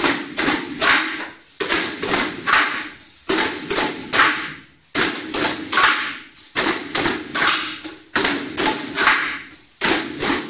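A group drumming with sticks on plastic buckets, bins and pots, playing a repeated figure of three strikes and a short pause, in unison.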